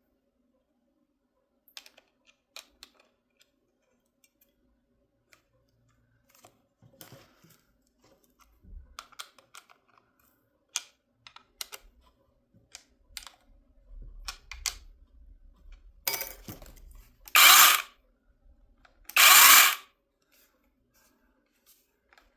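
Scattered clicks and knocks of the cordless chainsaw being handled and its chain tension adjusted. Near the end the saw is triggered twice, running in two short bursts of about a second each, its chain whirring around the bar with no bar oil in it.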